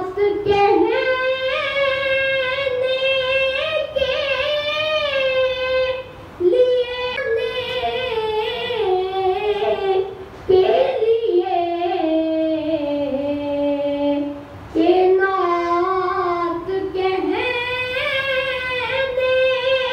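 A boy singing a devotional recitation solo into a microphone, unaccompanied: long held, wavering notes in phrases, with short breaks for breath about 6, 10 and 15 seconds in.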